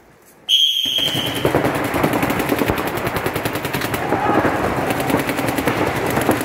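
A high steady tone about half a second in, lasting about a second, marks the start of the point. Straight after it, paintball markers open up in loud, rapid, continuous fire from several players at once.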